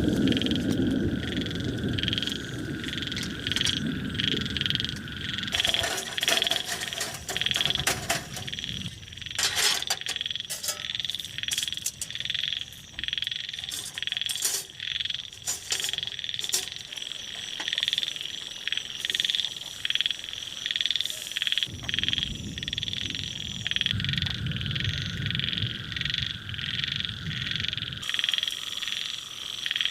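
A chorus of frogs calling in fast, steady pulses, with other higher, clicking calls joining for several seconds about a quarter of the way in. A low rushing noise is there at the start, fades out, then returns for a stretch near the end.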